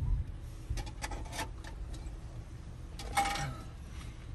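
Faint clicks and small handling noises of a payment at an entrance booth, heard through the open driver's window over a low idling rumble, with a short louder sound about three seconds in.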